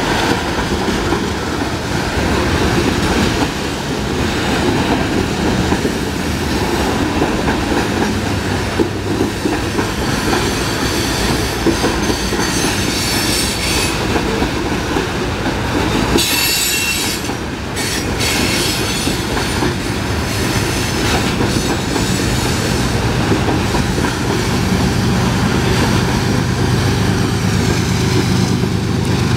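Loaded coal hopper cars rolling past: a steady heavy rumble with wheel clickety-clack and a brief high wheel squeal about halfway through. Over the last few seconds the diesel engine of the rear locomotive, a GE ES44AC, grows in under the car noise.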